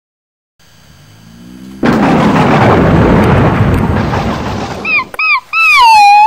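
A thunderclap breaks out suddenly about two seconds in and rumbles loudly for some three seconds. A dog then gives several short high yelps, the last one drawn out and falling.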